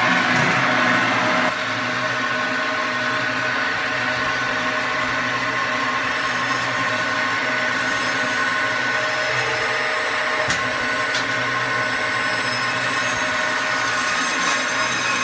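Electric bandsaw running steadily with its blade cutting down through a large grouper's head, a steady machine sound that drops slightly in loudness about a second and a half in.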